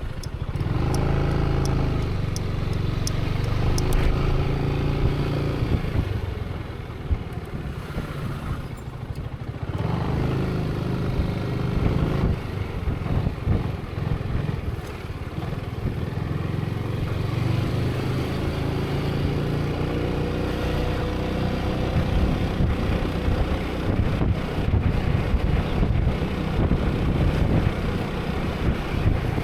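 Zontes 350E motorcycle engine running under riding load, revving up and easing off. It drops back briefly about a third of the way in and then picks up again. A light, regular ticking sits over it in the first few seconds.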